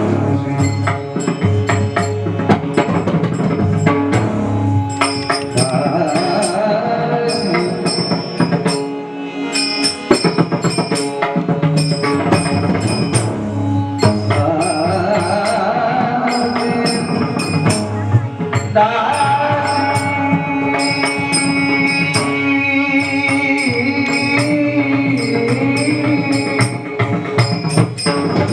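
Marathi bhajan music without recognisable words: a hand drum plays in a steady rhythm under regular strokes of small hand cymbals, with a held, wavering melody line over them.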